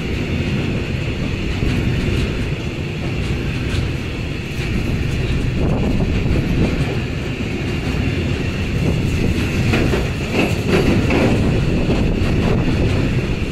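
Freight train of tank wagons rolling past, a steady rumble with irregular wheel clicks over the rail joints, most of them a little after the middle.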